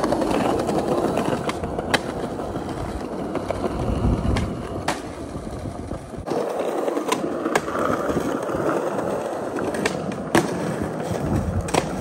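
Skateboard wheels rolling over stone and brick paving tiles, a continuous rumble broken by about six sharp clacks of the board.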